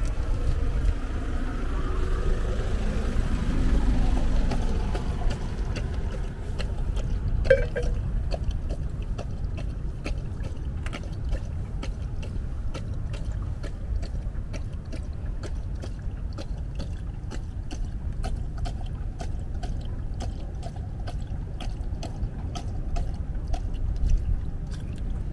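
Water poured from a bottle into a collapsible dog bowl, then a Dutch Shepherd lapping water steadily, about three laps a second, over a low steady rumble.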